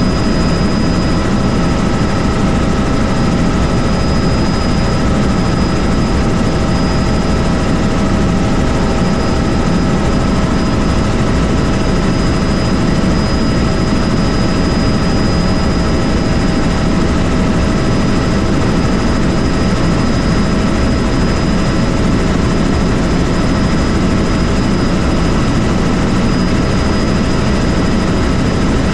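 Helicopter in flight: loud, steady rotor and engine noise with a constant high whine, unchanging throughout.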